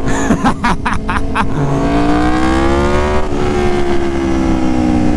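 Aprilia Tuono Factory's V4 engine running through an SC Project S1 exhaust, loud. A few short pops come in the first second and a half. The engine then rises in pitch for about two seconds under acceleration and settles into a steady note that falls slowly.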